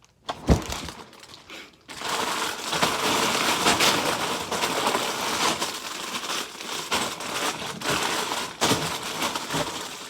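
Plastic LEGO parts bags crinkling and rustling as they are rummaged through in a search for the first numbered bag. There is a single thump about half a second in, and the crinkling runs on busily from about two seconds in until near the end.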